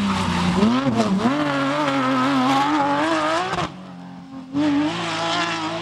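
Porsche 911 GT3 rally car's flat-six engine at high revs, its pitch dipping and climbing again about a second in, then rising slowly. It cuts off abruptly past the middle, and a second rally car's engine comes in loudly about a second later.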